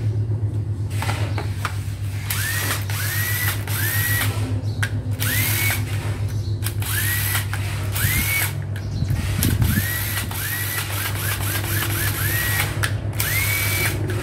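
Used Makita cordless drill being test-run in the hand: the trigger is pulled a dozen or so times. Each short run spins the motor up to a steady whine. A quick string of brief blips comes about two-thirds of the way in.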